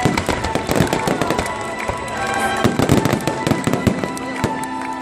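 Fireworks going off in a rapid run of bangs and crackles, with music underneath.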